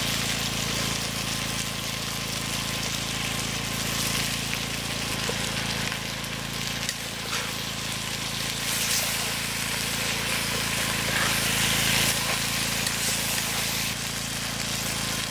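A pot of meat cooking on a stove, with a steady hiss of simmering over a low steady hum.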